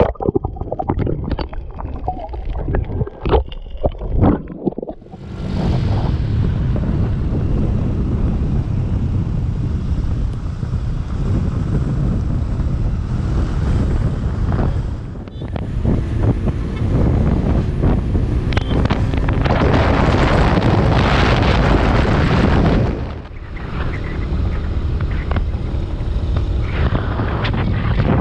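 For the first five seconds, scattered clicks and knocks picked up by a camera underwater while snorkelling. After that, loud wind rushing over the microphone of a camera on a moving motor scooter, briefly dipping twice where the footage is cut.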